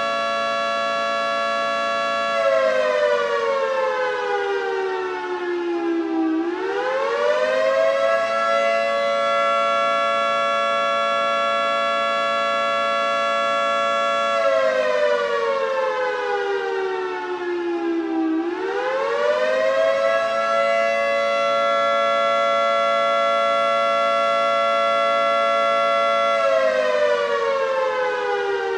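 Federal Signal 3T22A three-tone rotating warning siren sounding its Attack signal, a slow wail. Its dissonant chord holds steady, slides down in pitch over about four seconds, then climbs quickly back up; this happens twice, with another fall starting near the end.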